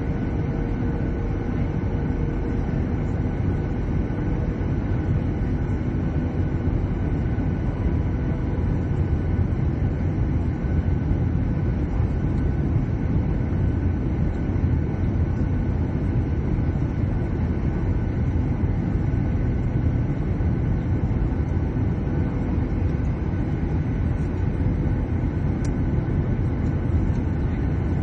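Steady cabin noise of a jet airliner descending to land, heard from a seat over the wing: a low, even rumble of engines and airflow with faint steady tones above it.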